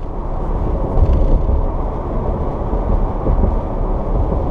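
Steady low road and engine rumble of a 2013 Toyota Tacoma pickup driving on the interstate, heard from inside the cab.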